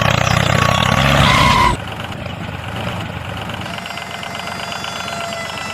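A vehicle-type engine sound running steadily, which cuts off abruptly a little under two seconds in, leaving a quieter background with a faint steady hum.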